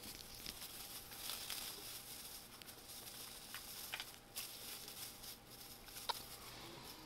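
Faint rustling and crinkling of a thin plastic grocery bag as ferrets burrow and squirm inside it, with a few soft taps.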